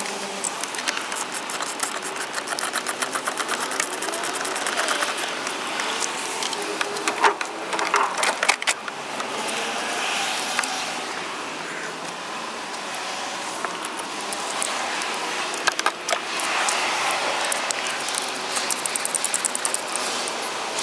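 Two runs of rapid, evenly spaced clicking over a steady hiss, with a few sharp knocks between them.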